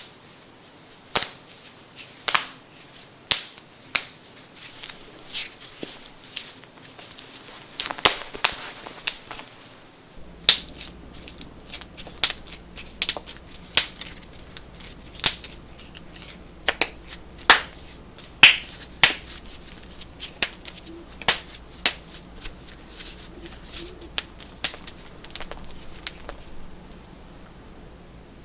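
Knuckles cracking: dozens of sharp pops at irregular spacing, sometimes two or three in quick succession, as finger joints are bent to make them pop.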